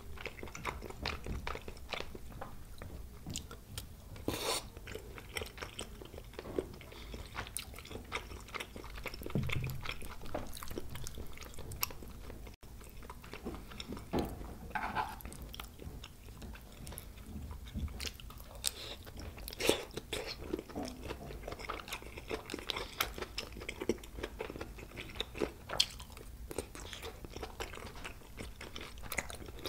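Close-miked mukbang chewing of spicy tteokbokki rice cakes and fish cake, with many short wet mouth clicks scattered throughout.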